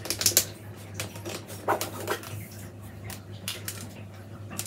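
Buff willow rods being bent and wound by hand into a wreath hoop: scattered clicks, creaks and rubbing of the stems against each other. They are busiest in the first half second and again around two seconds in, over a low steady hum.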